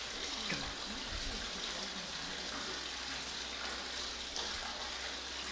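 Steady water noise inside a deep stone well: an even rushing hiss of trickling and splashing water.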